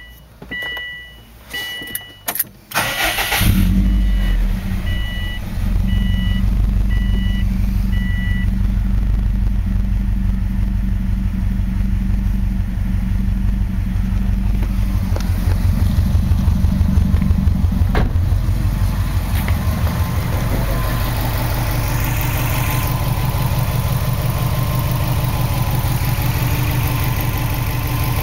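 A repeating electronic warning chime beeps for the first several seconds over a few clicks, then a 2003 Subaru WRX's turbocharged 2.0-litre flat-four cranks and starts about three seconds in and settles into a steady idle. The engine has logged a cylinder 4 misfire (code P0304).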